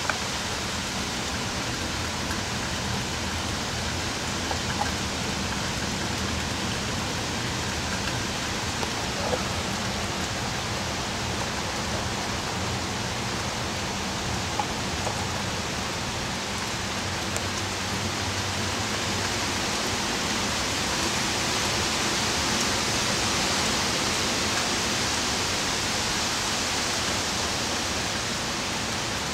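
Steady rushing of heavy rain and wind from Hurricane Irene, swelling a little about two-thirds of the way through.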